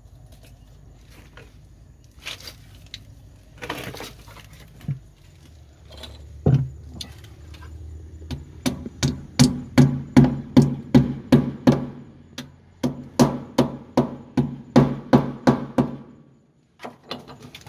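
Claw hammer driving plastic wall plugs into drilled holes in a wall: a few scattered knocks, then a steady run of sharp taps, about three a second, with a short pause midway.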